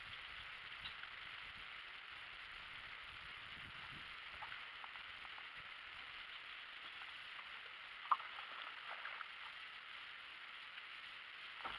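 Quiet steady hiss with scattered light ticks and taps from an aluminum fishing boat and rod-and-reel tackle being worked; the sharpest click comes about eight seconds in, followed by a short cluster of faint ticks.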